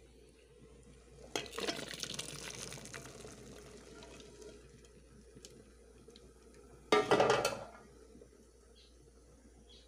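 Water pouring and sloshing in a metal bowl of pigeon peas as they are rinsed: a longer pour about a second and a half in that fades away over a few seconds, then a shorter, louder splash about seven seconds in.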